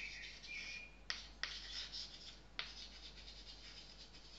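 Faint pen-writing sounds: a pen scratching across a writing surface, with three sharp taps or clicks in the first few seconds.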